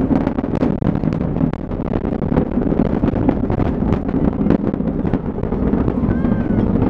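Falcon 9 first stage's nine Merlin engines heard from the ground during ascent: a steady low rumble thick with crackling.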